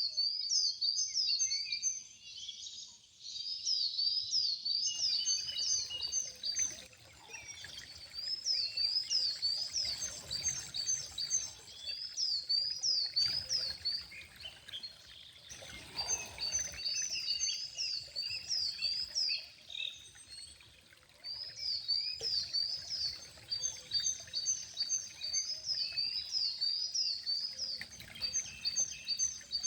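A bird calling over and over in runs of quick, high rising-and-falling chirps, about three or four a second, with short pauses between runs, over a faint background hiss.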